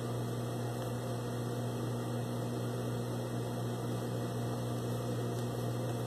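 Steady low electrical hum, unchanging throughout.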